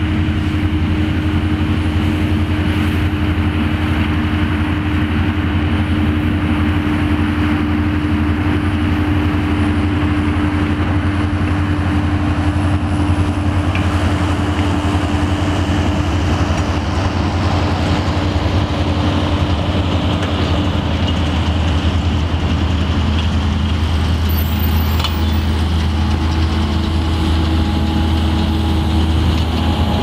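Tractor diesel engines working under load, pulling McHale Fusion round baler-wrappers as they pick up and bale rowed grass for silage: a steady low drone with a constant hum over it.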